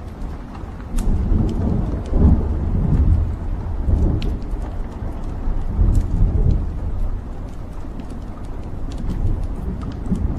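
Wood fire burning in a fireplace: a low rumbling roar of flames that swells several times, with scattered sharp crackles and pops from the burning logs.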